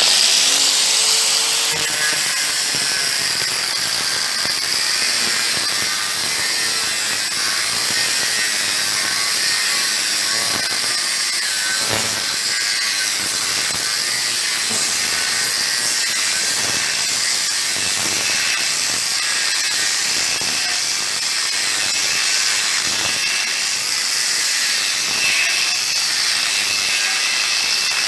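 Power saw blade cutting a slot into steel plate, starting abruptly and running steadily with a dense high hiss. The slot is being opened up so it can be packed with weld for deeper penetration between the two steel parts.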